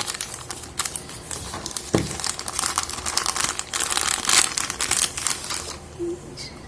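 Plastic packaging crinkling and rustling as it is handled, with a single dull knock about two seconds in.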